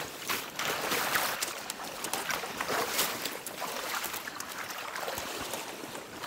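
Wading steps splashing and sloshing through shallow marsh water, with a small boat towed along by hand, its hull swishing through the water. Short sharp splashes come again and again.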